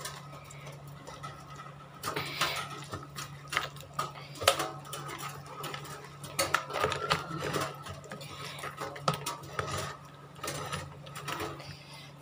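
A hand squishing and turning fish in a pot of damp fermented rice for kasam: uneven wet rustles and scrapes, with sharp knocks now and then as fish and fingers hit the side of the pot, over a steady low hum.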